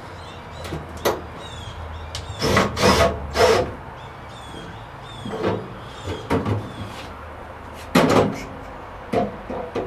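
Irregular knocks, scrapes and rattles from hands and tools working on a wall-mounted network cabinet as it is fitted to the wall. A cluster of louder knocks comes about two and a half to three and a half seconds in, and another sharp knock about eight seconds in.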